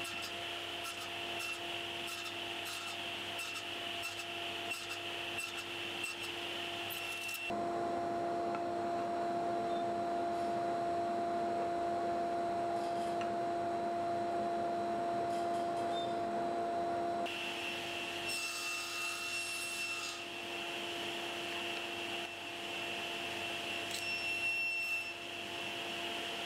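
Table saw running, its blade nibbling a tenon into an ash handle blank in repeated passes: a steady motor and blade whine with the rasp of the blade cutting the wood.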